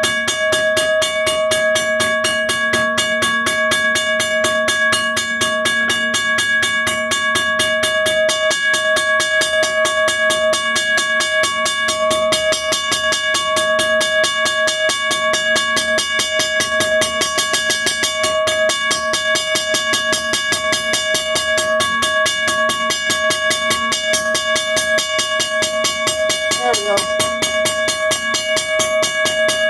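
1982 first-generation Western-Cullen-Hayes mechanical railroad crossing bell ringing loud and continuously. Its striker hits the gong in rapid, even strokes over a steady ringing tone, running at the speed being checked after it was adjusted.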